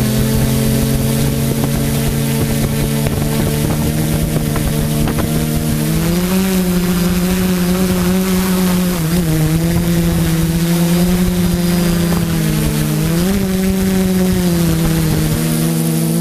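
Quadcopter's four Sunnysky 980kv brushless motors spinning 10x4.5 APC propellers, a steady multi-toned buzz whose pitch shifts a few times, about six seconds in and again near thirteen seconds. The quad is still at ground level, and the sound is picked up by the camera on board.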